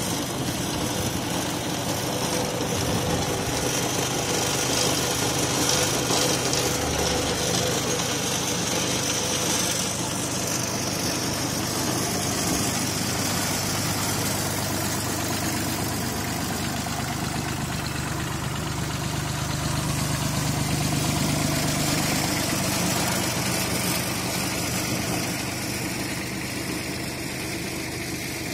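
Mitsubishi compact tractor's engine running steadily at an even speed, driving a belt-driven HTP spray pump.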